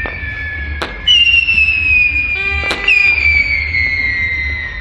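Whistling fireworks: several long whistles that slowly fall in pitch and overlap, a new one setting off about a second in and another near the middle, with sharp cracks of bursting fireworks between them.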